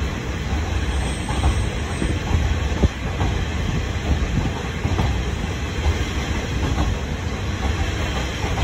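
KiHa 30 diesel railcar running along the line, heard from inside the passenger cabin: a steady low engine and running rumble, with wheels clicking over rail joints now and then and one sharp knock about three seconds in.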